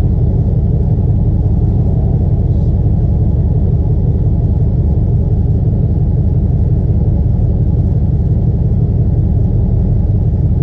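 LS1 5.7-litre V8 in a third-generation Camaro running steadily, a low rumble with no revving.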